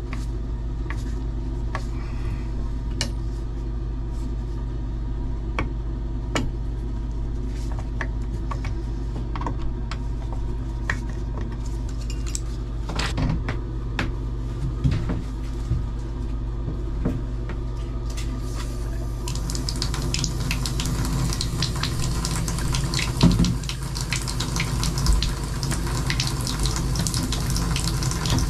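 Light clicks and knocks of hands and tools on copper pipe. About two-thirds of the way in, water is turned on and runs steadily out of the open copper tub-spout stub-out, splashing into the bathtub. A steady low hum sits underneath throughout.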